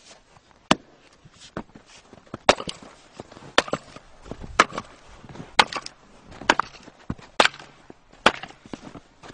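Firewood machine working through wood, with sharp wood-chopping cracks about once a second, some of them doubled.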